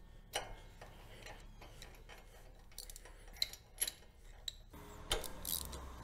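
Faint, scattered clicks and taps of hands and tools working at a riding mower's engine as the spark plug leads are pulled off and the plugs removed, with busier clicking near the end.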